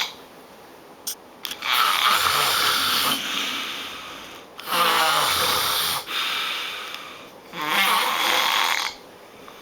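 A person snoring loudly: three long, rasping snores in a row, the middle one with a buzzing rattle.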